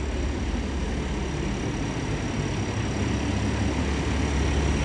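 A vehicle engine idling: a steady low drone with a faint, steady high tone above it.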